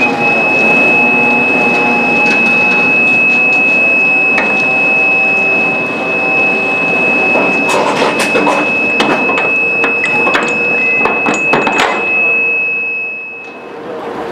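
A railway breakdown crane's warning sounder gives a steady, high-pitched continuous tone that cuts off shortly before the end. A run of sharp metallic clanks from the chains and wagon ironwork comes about halfway through, over the steady hum of the crane's diesel engine.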